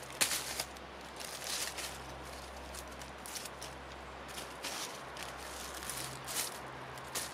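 Dry fallen leaves rustling and crackling in short irregular bursts, as someone moves through the leaf litter.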